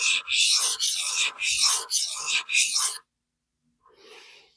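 Steel knife blade being stroked back and forth on a 400-grit vitrified diamond sharpening stone, a rhythmic scraping about three strokes a second that stops about three seconds in.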